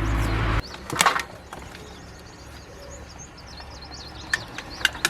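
A motor's steady hum cuts off suddenly about half a second in, followed by a single knock. After that, faint bird chirps sound over a quiet background, with a few light clicks near the end.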